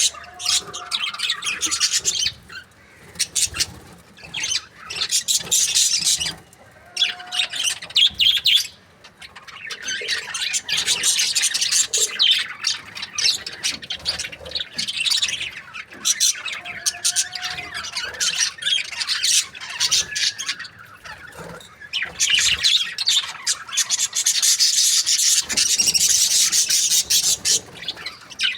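Budgerigar chattering and chirping in rapid high-pitched bouts, with brief pauses between them.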